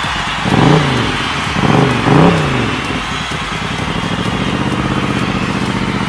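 Honda CX500 V-twin motorcycle engine, just started after sitting about two months, blipped three times in quick succession with the revs falling back after each. It then settles into a steady idle.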